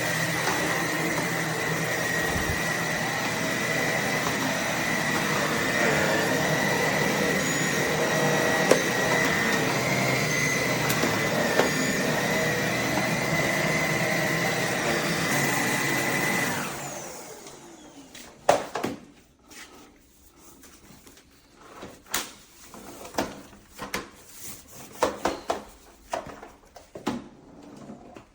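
Roborock H60 Ultra cordless stick vacuum running steadily with a high whine. It is switched off about two-thirds of the way through and winds down. Scattered clicks and knocks follow as it is handled.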